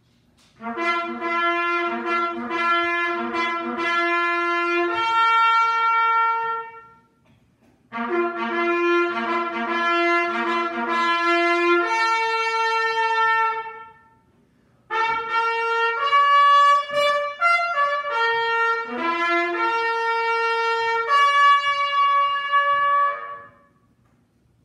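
Solo trumpet playing a bugle call in three phrases, each starting with quick repeated notes and ending on a long held note.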